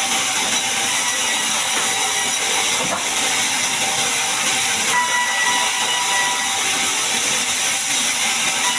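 Sawmill bandsaw blade cutting through a large mahogany log: a steady, loud hiss with a thin whine that grows stronger about five seconds in.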